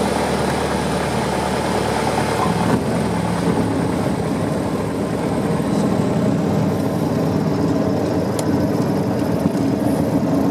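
Small aircraft's engine and propeller running steadily on final approach, heard inside the cabin, with the engine note shifting lower about three seconds in.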